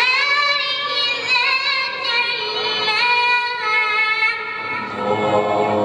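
A single high voice singing unaccompanied in long held notes, bending and ornamenting the pitch between them. Near the end a lower voice comes in.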